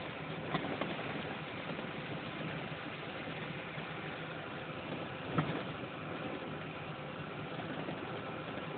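Vehicle engine running and tyres rolling over a rutted dirt road, heard from inside the cab. Two knocks come as it hits bumps, a small one about half a second in and a louder one about five seconds in.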